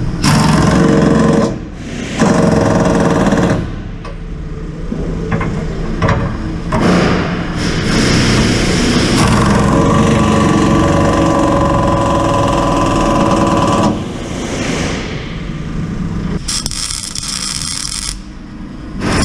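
Power tools working on steel, running in long bursts broken by short pauses.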